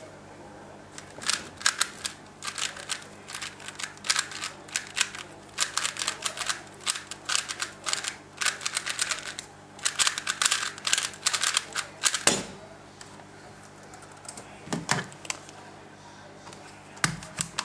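Rapid clicking and clacking of a 3x3 speedcube's layers being turned during a solve, from about a second in until about twelve seconds in, ending with a thump as the solve finishes. A few single knocks follow.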